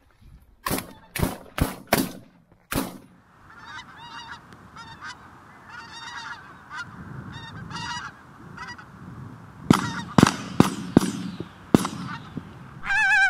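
Shotguns firing at pink-footed geese: a volley of about five shots in the first three seconds, a second volley of about five shots around ten to twelve seconds in, and geese calling with high honks in between and near the end.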